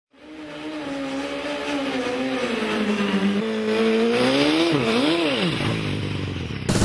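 Vehicle sound: a pitched whine that drifts slowly lower, then swings up and down twice and fades out. A loud, sudden burst of sound cuts in just before the end.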